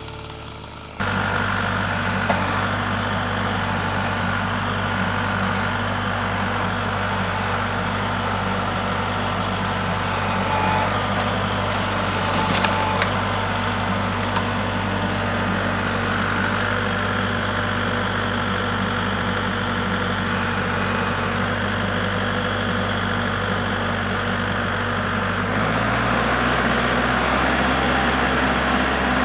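Kubota MX5400 HST tractor's diesel engine running steadily, with a few sharp wood snaps as brush is worked. The engine note changes about 26 seconds in.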